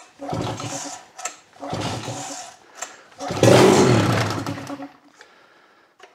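1975 Mercury 20 hp two-cylinder outboard being pull-started with the choke out after a carburetor rebuild. Two short cranking pulls are followed by a third, on which the engine fires and runs for about a second and a half, then dies.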